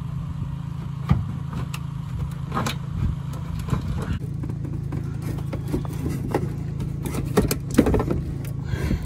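Scattered clicks and knocks of plastic and hand tools as a washer fluid reservoir and its pump are worked loose in a truck's engine bay, over a steady low hum.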